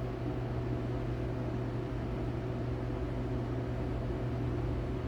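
Steady low mechanical hum with a constant low drone and fainter higher tones, unchanging throughout.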